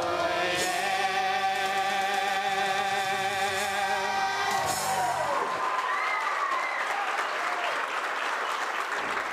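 Children's choir holding the last note of a song over its accompaniment, cutting off about five seconds in, then the audience applauding.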